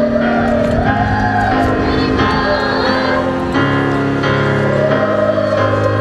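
Children's chorus singing a song together over an instrumental accompaniment of held chords that change every second or so.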